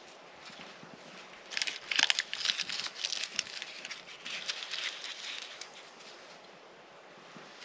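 Dry crinkling and scraping of tinder being worked by hand over a fire lay of split wood and pine boughs. It is busiest from about a second and a half in until about five and a half seconds, loudest around two seconds.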